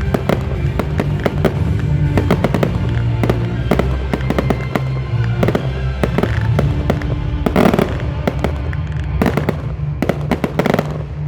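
Fireworks display: a rapid, dense run of bangs and crackles from bursting shells, heaviest in a volley a little past the middle. Music plays underneath.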